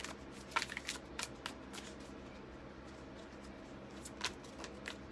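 A deck of cards being shuffled by hand: quick papery slaps and clicks as the cards fall together, several in the first two seconds, a brief lull, then a few more near the end.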